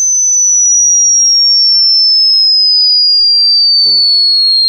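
High-pitched pure sine test tone from a hearing-test sweep, a single steady whistle-like pitch sliding slowly downward.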